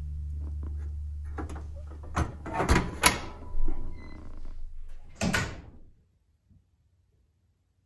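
Cast-iron wood stove door being swung shut and latched: a string of metallic clanks and knocks, the last and loudest about five seconds in.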